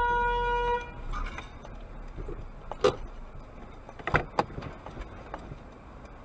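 Car horn held for about a second, followed by a sharp knock near three seconds in and a few more knocks about a second later.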